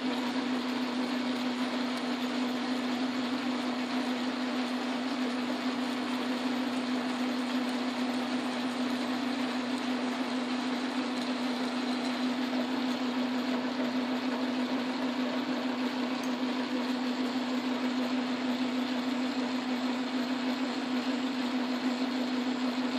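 Metal lathe running under load as a large Morse-taper twist drill in the tailstock bores into the spinning workpiece: a steady drive hum with an even wash of cutting noise over it.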